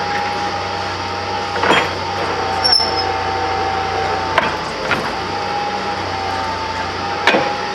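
Borewell drilling machine running steadily with a constant whine and low hum, with sharp metallic knocks about five times.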